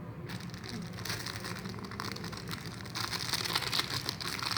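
Plastic wrapping crinkling and crackling as it is pulled off a new power bank, getting louder toward the end.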